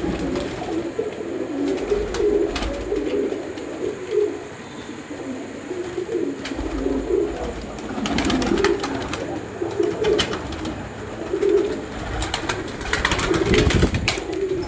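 A group of domestic Punjabi flying pigeons cooing continuously, many calls overlapping. Scattered sharp clicks run through it, and there is a louder noisy stretch near the end.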